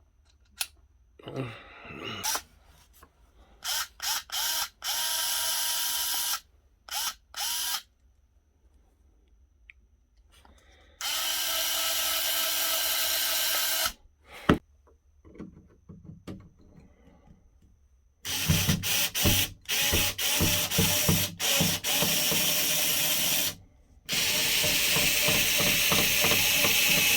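Small cordless electric screwdriver motor running in steady spurts of one to three seconds, started and stopped several times, with a stretch of quick on-off pulses and light clicks in between.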